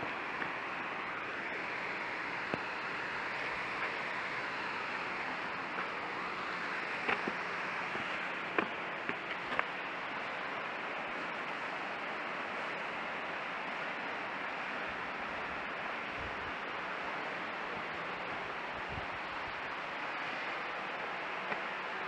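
Steady rushing of a small waterfall, with a few faint clicks between about seven and ten seconds in.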